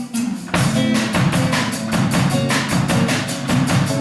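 Band music with no singing: after a brief dip, an acoustic band comes in about half a second in with guitar, double bass, shaker and drums playing a fast, even rhythm.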